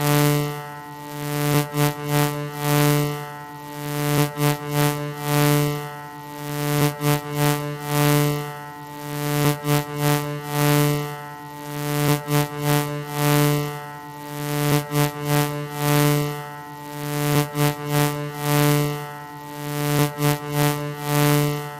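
Background electronic music: a sustained synthesizer tone that swells and pulses in a repeating pattern about every two seconds, with quick stuttering beats between the swells.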